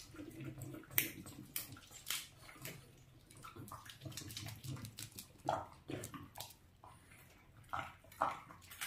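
Dogs eating raw duck: faint wet chewing and lip-smacking with irregular sharp clicks.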